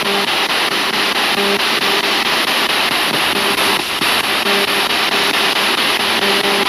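A handheld spirit-box radio scanning through stations, giving a steady hiss of radio static with short hums cutting in and out.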